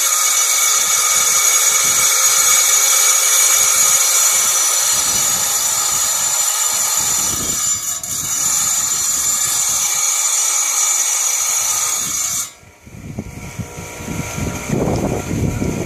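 Harbor Freight electric tile saw running with a steady high whine while cutting rock. The whine stops suddenly about twelve seconds in, and a quieter, uneven low rumble follows.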